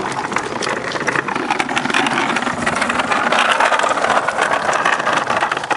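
Boat hull towed over the ground behind a truck: a loud, rough, steady rumbling and rattling noise that cuts off suddenly at the end.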